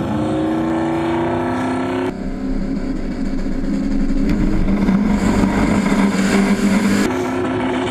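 Drag-racing car engines at full throttle, climbing in pitch for about two seconds as they accelerate. The sound cuts abruptly to a loud engine running with a steady low tone, which cuts off again near the end.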